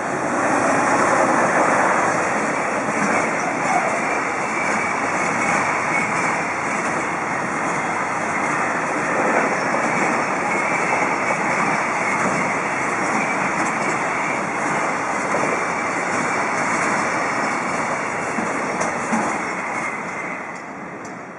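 A long JR Freight container train, hauled by an EF210 electric locomotive, rolling past close by with a steady rumble of wheels on rail. It tails off near the end as the last wagons go by.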